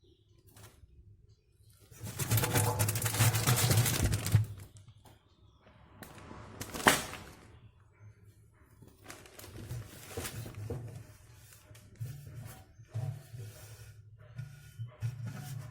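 Handling noise: a loud burst of rustling about two seconds in, a single sharp click near seven seconds, then scattered light clicks and knocks.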